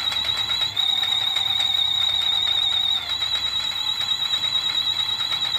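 Kmart Moving & Shaking Ghoul animated Halloween prop sounding its really annoying electronic shriek through its small built-in speaker: a loud, high, warbling alarm-like tone that cuts off suddenly near the end.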